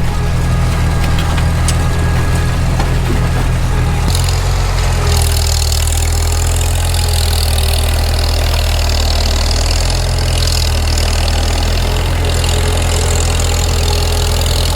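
Farmall Super M tractor's four-cylinder engine running steadily, its note shifting about four seconds in, with a hiss added over it from then on.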